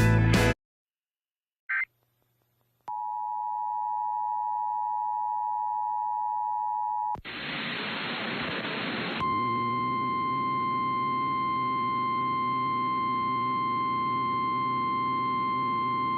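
Emergency Alert System broadcast tones: a loud burst cuts off half a second in. A steady two-note attention signal is then held for about four seconds, followed by about two seconds of static hiss. A single steady NOAA Weather Radio warning alarm tone then holds through the rest over background hiss and hum.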